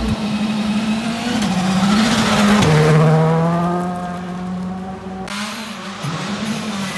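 Rally car engine passing at speed on a dirt stage, revving hard; its note drops sharply as it goes by about three seconds in, then fades, with another car's engine audible again near the end.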